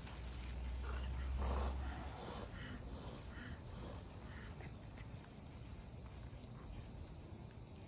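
Kitten hissing at an approaching adult cat: one loud hiss about a second and a half in, followed by a few shorter, fainter hisses.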